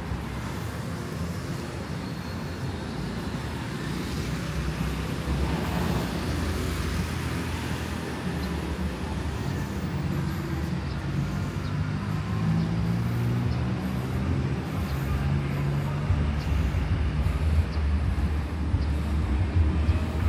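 Street traffic: vehicle engines running close by with a steady low rumble that grows louder in the second half.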